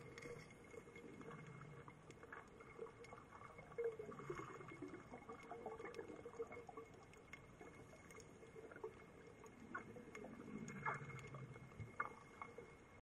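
Faint underwater ambience recorded inside a dive camera's waterproof housing: a low hiss with scattered clicks and small gurgles. It cuts off suddenly near the end.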